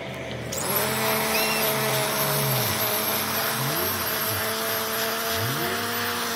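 Corded electric string trimmer starting up about half a second in and running steadily with a motor whine as its line cuts the grass edge along a concrete sidewalk.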